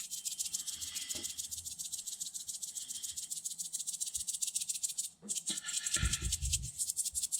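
Spice shaker shaken fast and hard, the seasoning rattling inside at about nine shakes a second, because the clumped seasoning will not come out. There is a brief pause about five seconds in and a few low knocks near the end.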